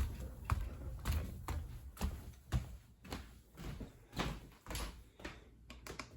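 Soft, irregular knocks and clicks, a few each second, over a low rumble.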